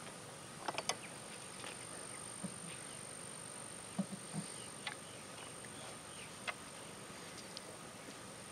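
Steady high-pitched insect drone, with a few faint short knocks and clicks scattered through it.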